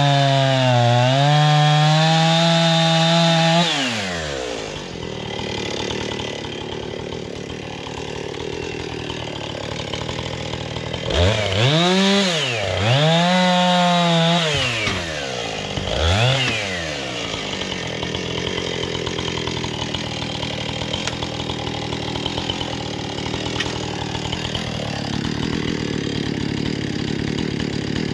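Chainsaw engine running at full throttle, dipping briefly about a second in, then dropping to idle a few seconds in. It is blipped up and back down twice in quick succession in the middle and once more, shorter, a little later, then idles.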